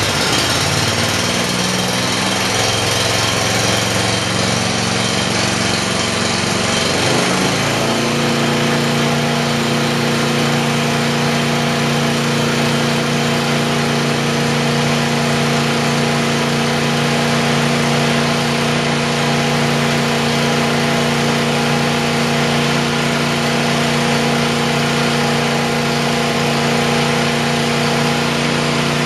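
Stanley CH7 chipper shredder's 270 cc single-cylinder engine running on its first start, turning the heavy flywheel. About seven seconds in its speed steps up, then it settles into a steady, even run.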